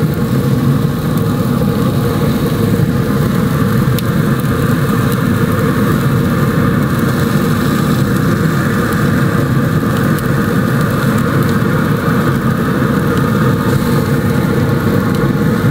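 Pellet grill's combustion fan and fire at high heat running as a loud, steady hum, with a few faint steady tones above it.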